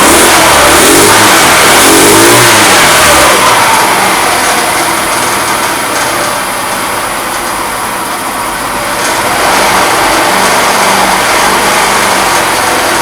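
Fada Wind moped's small petrol engine running, now firing after fresh petrol and a cleaned carburettor. It is revved up and down a few times in the first three seconds, eases back toward idle, and picks up again about nine seconds in.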